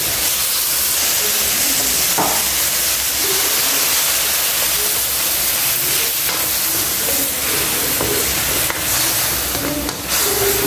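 Chicken pieces and red onion sizzling in a wok, a steady frying hiss, while a spatula stirs and scrapes them around the pan with an occasional knock.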